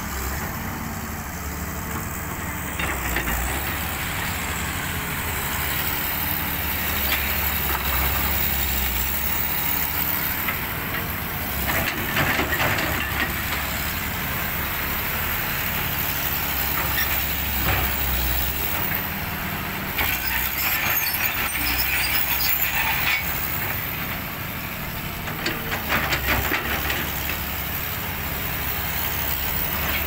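Caterpillar crawler excavator working: its diesel engine runs as a steady low drone, with several spells of rattling and scraping from the machine on gravel, around the middle and again near the end.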